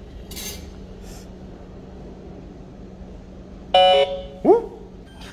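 PRESTO fare card vending machine giving one short, loud, buzzy error beep near the end, the signal of a failed card update (device error). A low steady hum runs underneath.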